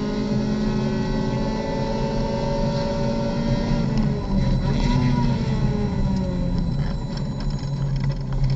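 Skip Barber Mazda MX-5 race car's engine heard from inside the cockpit, held at high revs at full throttle on the straight, then falling in pitch with a short throttle blip about five seconds in as the car brakes hard and downshifts for a corner.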